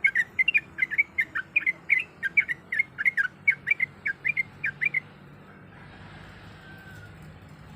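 Yellow-vented bulbul (trucuk) singing a fast, chattering run of short whistled notes, about six a second, that breaks off about five seconds in. A faint hiss remains after it.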